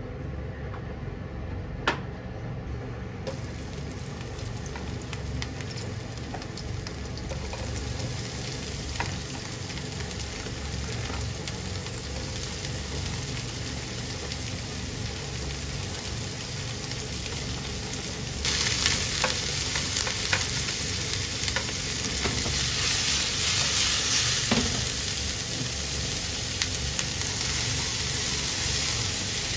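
Chopped onions sizzling in oil in a non-stick frying pan and being stirred with a spatula. The sizzle starts softly, with a sharp click about two seconds in, and gets louder a little past halfway.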